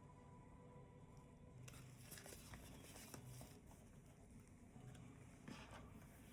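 Near silence: room tone with faint, scattered rustles and small clicks of something being handled.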